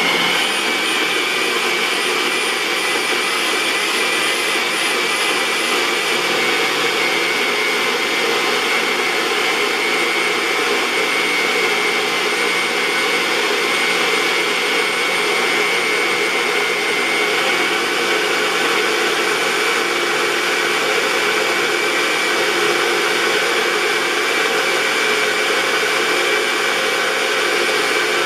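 NutriBullet Rx blender running steadily, blending a kale and juice smoothie: an even motor whir with a constant high whine that holds the same speed throughout.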